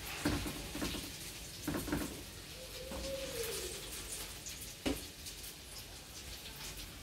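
Flatbread dough sizzling and crackling in oil on a hot electric pan, with a few soft knocks as it is laid in and smoothed flat. A short low tone rises and falls about three seconds in.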